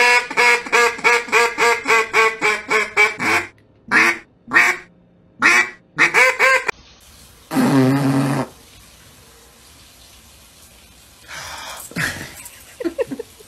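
Duck call held in a chocolate Labrador's mouth sounding a fast run of short quacks, about four a second, then a few slower ones, stopping about seven seconds in. One longer, lower call follows about a second later.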